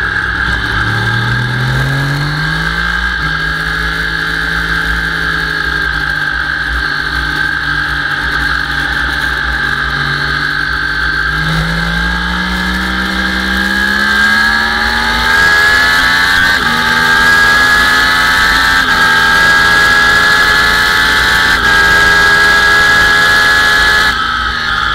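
Sport motorcycle engine heard from the rider's seat. It pulls through a corner at a steady pitch, then climbs in pitch and gets louder as the bike accelerates hard down a straight, and the note drops near the end.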